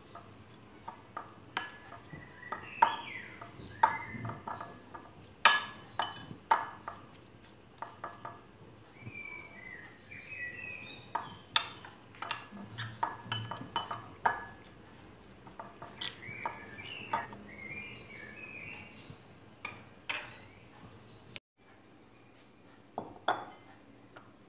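Metal spoon clinking and scraping against a ceramic bowl while stirring a wet chopped-herb mixture, in irregular clicks and knocks. Birds chirp in the background.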